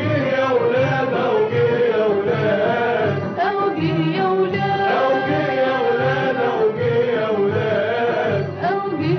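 Festive Egyptian Ramadan song: a sung melody over a steady beat.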